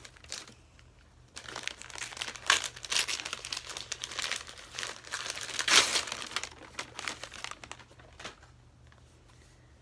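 Wrapping paper around a book crinkling and rustling as it is pulled open by hand, busy from about a second in and dying away after about seven seconds.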